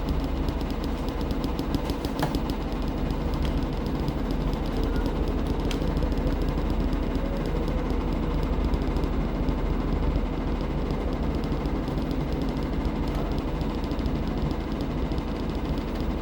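Washing machine running with a steady mechanical hum and rapid fine rattle, unchanging throughout.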